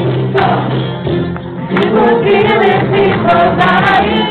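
Live group performance: several voices singing together over acoustic guitar accompaniment, fuller from about two seconds in.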